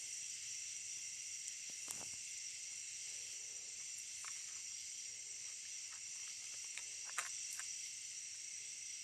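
Steady chorus of night insects, a constant high shrill in several pitches, with a few faint clicks and one sharper tick about seven seconds in.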